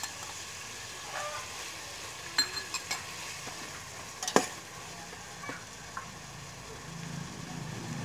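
Pork pieces sizzling in oil in an aluminium pot while a metal ladle stirs them. The ladle knocks against the pot several times, loudest about four seconds in.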